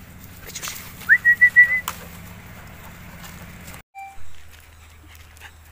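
A person whistling a call about a second in: one quick upward-sliding note that breaks into a rapid run of four or five short pulses at the same high pitch.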